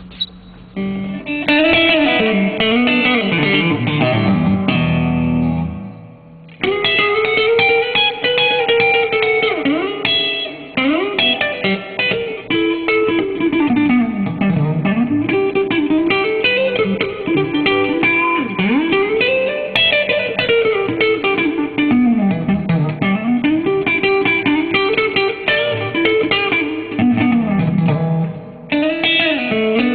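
Electric guitar played in the chicken-picking style: many quick picked notes in rising and falling runs, on a clean tone through a Marshall amp. The playing stops briefly about six seconds in and picks up again.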